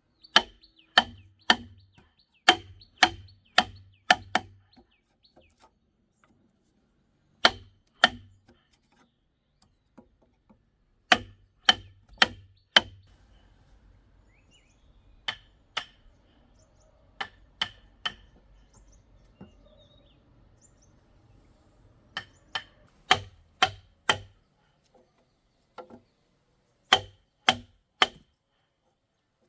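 Repeated sharp blows of a hand tool, in runs of two to seven strikes about two a second with pauses between runs, each blow with a short ringing note.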